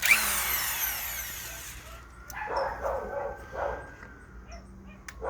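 Eastvolt 800 W cordless impact wrench run free on a short trigger pull, its motor starting suddenly and then winding down with a falling whine over about two seconds. A few shorter, quieter sounds follow.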